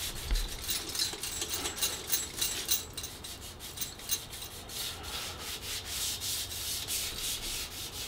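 Sandpaper rubbed by hand in quick back-and-forth strokes over a primed steel bicycle frame tube, feathering out chips and scratch marks in the paint before the next primer coat.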